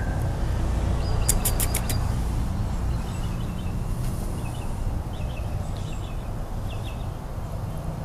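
Sandhill crane striking at a glass shop window at its own reflection: a quick run of about five sharp taps. A steady low rumble continues underneath.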